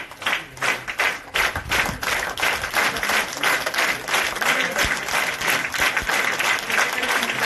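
A small group of people clapping their hands in steady, continuous applause.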